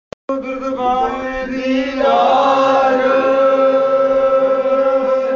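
Men's voices chanting in unison, a Sikh devotional chant, over a steady held drone tone; the chanting swells about two seconds in.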